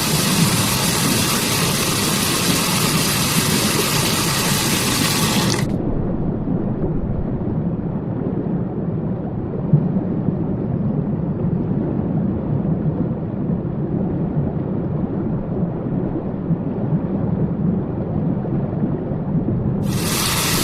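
Steady rushing water of a waterfall. About six seconds in, the hiss drops away and leaves a duller, muffled rumble. The full, bright sound comes back near the end.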